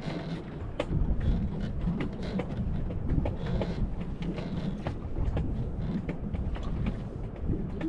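Wind and water rumbling around a small fishing boat at sea, with scattered sharp clicks and knocks from the boat and its gear.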